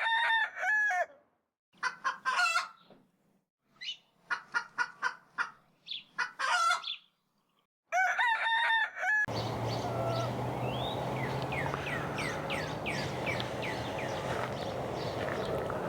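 A rooster crows, then hens cluck in a string of short calls and the rooster crows again, with dead silence between the calls. About nine seconds in this cuts to a steady outdoor background with a low hum and a run of quick falling chirps from a small bird.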